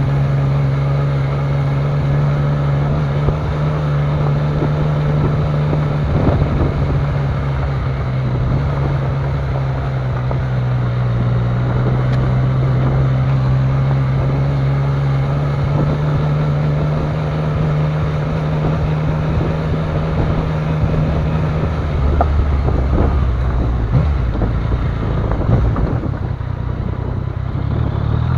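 Yamaha Niken GT's 847 cc inline-three engine running steadily at low speed, with occasional knocks from the rough track. About three quarters of the way through the engine note drops, and at the very end it rises again as the throttle opens.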